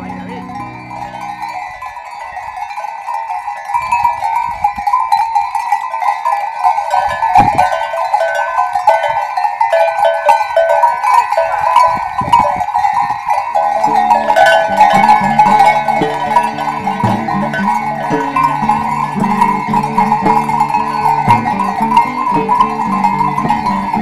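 Many goat bells clanking and ringing together as a herd of goats moves. About halfway through, plucked-string music joins underneath.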